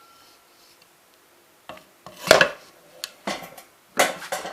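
Knocks and clatter of a submersible well pump's casing being worked off by hand: about four rattling knocks in the second half, irregularly spaced.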